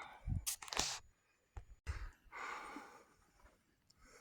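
A few faint footsteps and scuffs on rough, rocky ground, with a breath out about two and a half seconds in.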